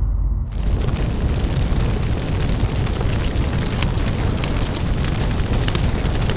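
Sound effect of a burning house: a deep rumble, joined about half a second in by a steady roar of flames with scattered sharp crackles and pops.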